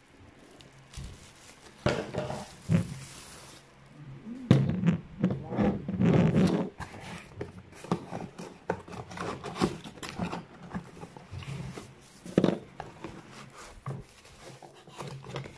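Bubble wrap crinkling and rustling, with cardboard box flaps being handled and knocked, as bottles are unwrapped. Irregular crackles and knocks, busiest from about four to seven seconds in, then sparser snaps.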